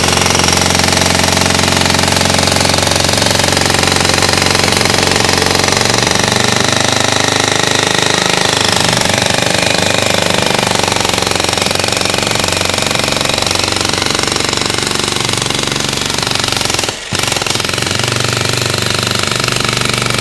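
Pro Tools 1600 W, 50 mm electric demolition hammer running continuously, its chisel hammering into a concrete floor. It cuts out for a moment about three-quarters of the way through, then starts again.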